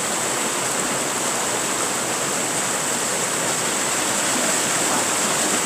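Mountain stream running over boulders in small cascades: a steady rush of water.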